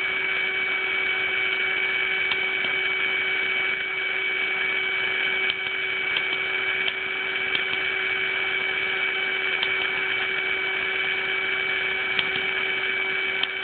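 Small DC motor spinning a fan blade, a steady hum with a higher whine over it. A few faint clicks of the switch keying in Morse code are scattered through it.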